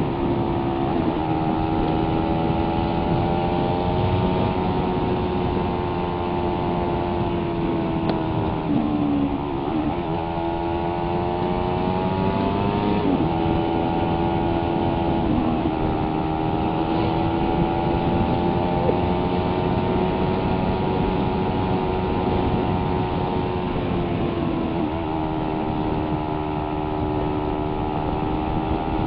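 Suzuki Raider 150's single-cylinder four-stroke engine running under way at a steady pitch, the note dipping briefly and picking back up a few times, over a steady rushing noise.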